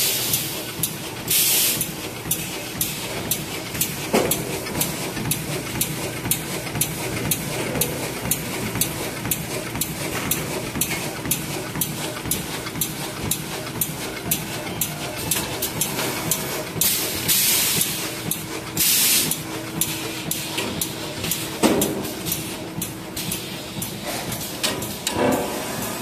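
DIPO KDP-326S plastic bag making machine running at speed: a rapid, even clatter of its cycling sealing and cutting strokes over a steady hum. Short bursts of air hiss come twice near the start and twice about two-thirds of the way through.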